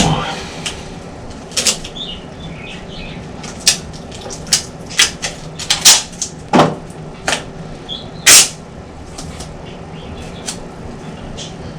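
Irregular sharp clicks and knocks, about a dozen, of hands handling tools, tape and parts at a workbench, with one longer, harsher sound about eight seconds in.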